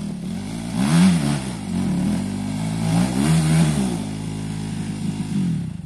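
Dirt bike engine running and revving, its pitch rising and falling in two surges, about a second in and about three seconds in, between steadier running. The sound stops abruptly near the end.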